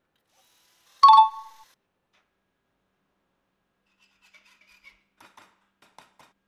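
A single bright metallic ping about a second in, ringing for about half a second, as of small steel parts striking each other. Later come faint scraping and a few small clicks of metal on metal, as a hacksaw blade works a steel washer held in a bench vise.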